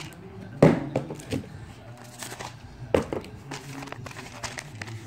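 Paper wrapping being crumpled and torn off a package by hand: irregular crinkling and crackling, with a few sharp knocks. The loudest comes about half a second in and another near three seconds.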